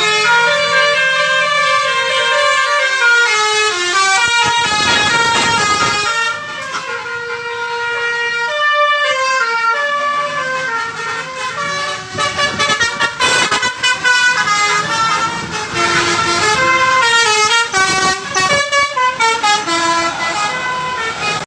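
Telolet basuri multi-tone bus air horn playing a tune in quick stepped notes, several tones sounding together. In the second half the notes come choppier, and the horn cuts off suddenly at the end.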